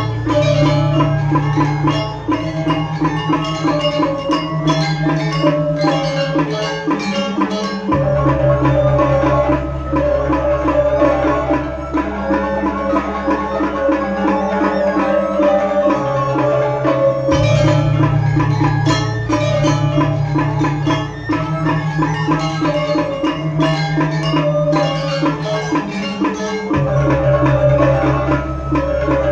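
Balinese gamelan music in bebonangan style: fast interlocking metallic gong-chime notes with drum and cymbal strokes, over deep sustained low tones that shift every several seconds.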